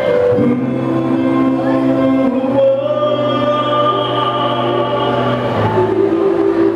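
Man singing a karaoke song into a microphone over a backing track, amplified through a PA. He holds long notes, one near the start and a higher one near the end.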